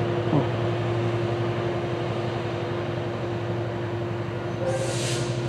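Diesel locomotive of an approaching Metrolink commuter train, its engine making a steady low drone. A short falling tone comes just after the start, and a brief hiss comes near the end.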